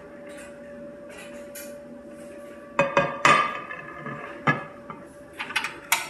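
Glass microwave turntable tray clinking and knocking as it is handled and set down on a stone countertop: a few sharp knocks, the loudest about three seconds in, then lighter clatters near the end.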